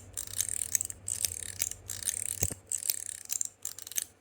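NEOJOY Spicy Gluten stainless steel slider fidget being worked back and forth: a run of metallic clicks and short sliding snaps, two or three a second, with one deeper knock about midway.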